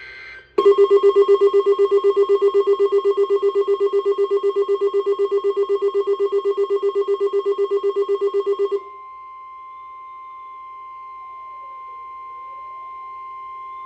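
A brief screech of alert-header data, then a weather radio receiver's alarm beeping rapidly, about six or seven beeps a second, for about eight seconds. This gives way to the steady 1050 Hz NOAA Weather Radio warning alarm tone, which announces a new alert.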